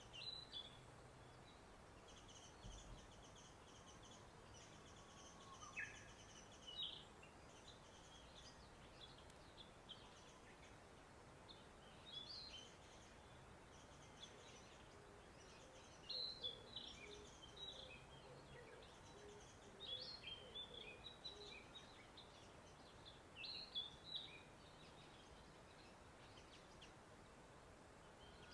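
Small songbirds chirping and calling in short, high phrases every few seconds, faint over a quiet natural background.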